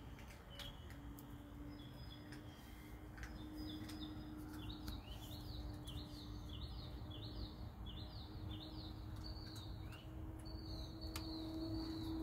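Bird singing: a run of about six matching chirped notes, each rising then falling, a little under a second apart in the middle, then a thin steady high note near the end, over a faint steady low hum.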